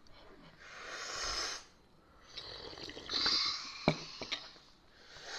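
A person breathing heavily, three long breathy hisses in and out about two seconds apart, with one sharp click about four seconds in.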